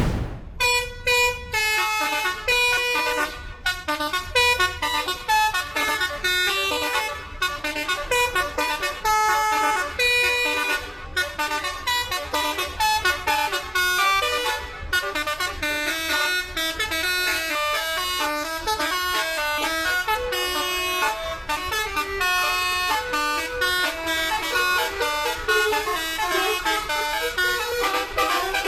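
Indonesian bus "telolet" horn, a set of musical air horns, playing a continuous string of melodic tunes, the notes changing quickly one after another.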